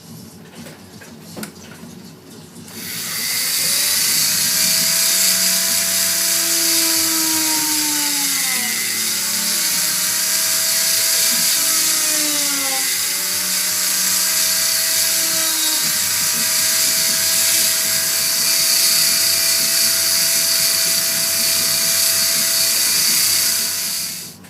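Small high-speed rotary tool running steadily for about twenty seconds, with a high whine. Its pitch dips and recovers twice as it bears on the work, and it cuts off sharply near the end.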